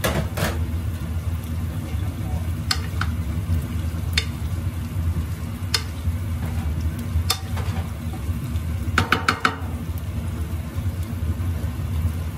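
Wooden spatula stirring and scraping jackfruit pieces in a nonstick wok, with a light sizzle from the frying. The spatula clicks against the pan every second or two, and knocks four or five times in quick succession about nine seconds in, over a steady low hum.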